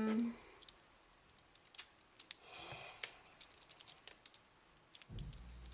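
Faint, scattered light plastic clicks and rattles from a Lego Technic balisong being handled. A low hum comes in near the end.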